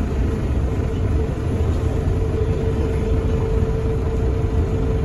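Bombardier Innovia APM 100 rubber-tyred people mover running along its guideway, heard from inside the car: a steady low rumble with a constant hum over it.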